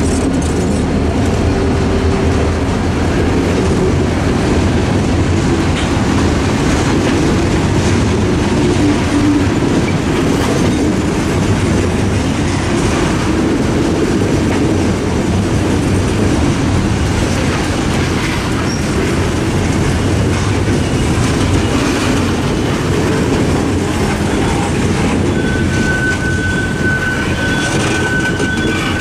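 Freight train hopper cars rolling past at close range: a steady rumble of steel wheels on rail with rhythmic clickety-clack over the rail joints. A thin, high wheel squeal starts near the end.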